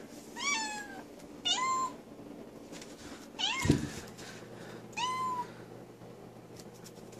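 Young cat (a kitten) meowing four times, short meows a second or two apart, with a brief thump during the third.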